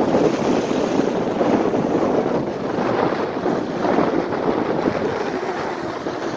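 Wind on the microphone with the rush of sea waves on the beach, an even noise that swells and eases a little.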